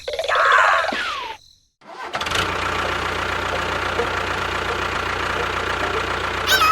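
A small engine running steadily, starting abruptly about two seconds in after a short silence. It is preceded by a brief jumble of gliding tones, and a short falling whistle-like tone cuts in near the end.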